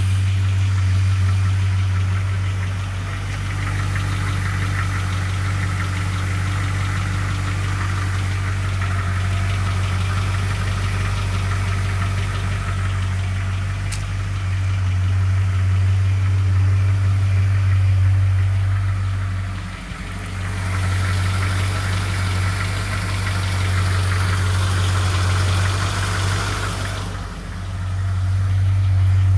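Ford 302 (5.0 L) V8 idling steadily with a strange noise from the engine. The owner suspects it is oil-related but is not sure. The level dips briefly twice in the second half.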